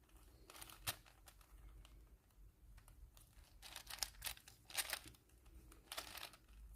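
Layers of a plastic 4x4 Rubik's cube being turned by hand: faint clicking, scraping turns in short bursts, about a second in, a cluster around four to five seconds in, and again near six seconds.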